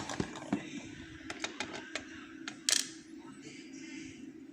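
Small metal lock parts clicking and tapping as they are handled during disassembly: about a dozen irregular ticks, with one louder clack about two and a half seconds in. A steady low hum runs underneath.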